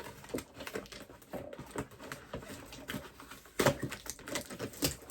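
Irregular clicks, taps and crackles of hands forcing open a toy's packaging, with two sharper snaps, one about three and a half seconds in and one near the end.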